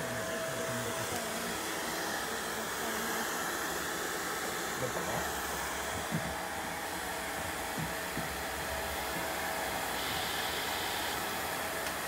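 Handheld hair dryer running steadily, a constant rush of blown air with a thin steady whine, and a few faint ticks.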